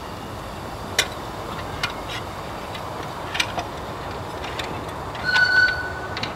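7¼-inch gauge live-steam locomotive running along the track with its riders, a steady rushing noise with scattered metallic clicks. About five seconds in, a brief high-pitched tone sounds for just under a second.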